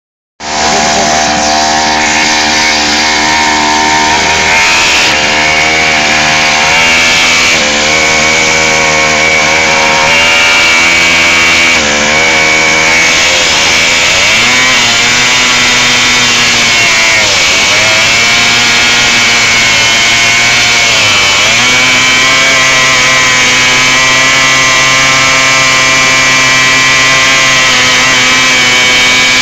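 Air-cooled two-stroke pocket bike engine held at high revs in a burnout, spinning its flat rear tyre against the pavement, the revs dipping briefly a few times and picking up again.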